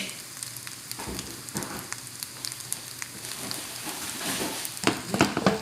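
Fried rice sizzling and crackling in a hot pan as it is stirred, with a few louder knocks about five seconds in.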